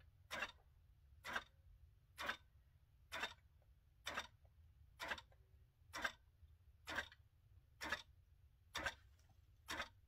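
Qnique 15 longarm quilting machine in slow baste mode, its needle taking one long basting stitch a little more often than once a second, each a short sharp clack.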